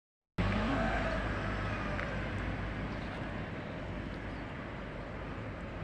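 Bus engine and road noise, a steady low rumble that eases slightly over a few seconds.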